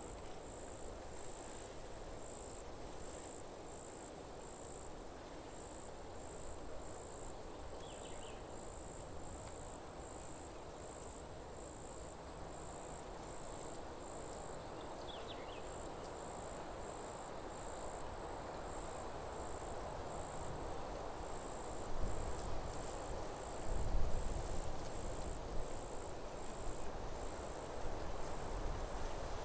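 Insect chirping, cricket-like: a high, thin tone pulsing in a steady even rhythm, over a soft hiss of forest ambience. Low rumbling sets in about two-thirds of the way through.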